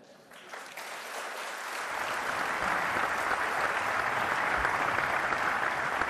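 Large audience applauding in a big parliamentary chamber. The clapping starts faintly, swells over the first two seconds and then holds steady and full.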